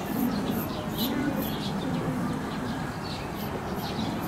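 Pigeons cooing low, with small birds chirping in short, repeated high notes.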